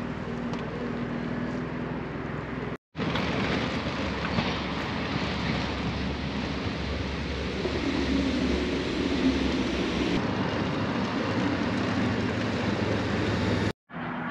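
Steady traffic noise of a vehicle passing close by, with a low rumble under a wide hiss. It cuts out briefly twice.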